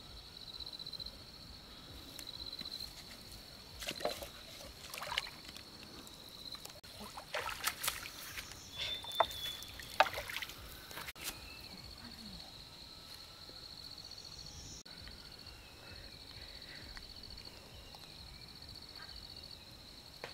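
Insects chirring steadily at a high pitch, with a run of splashes and knocks of water in the middle.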